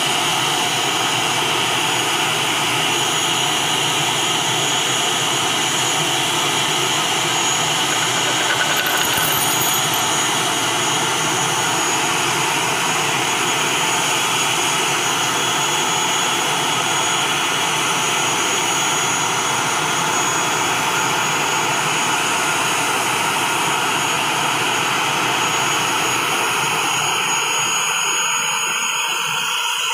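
ATR 72 turboprop airliner's Pratt & Whitney PW127 engines running steadily on the ground with propellers turning: a steady high whine over a broad rushing noise. The lower part of the noise drops away a few seconds before the end.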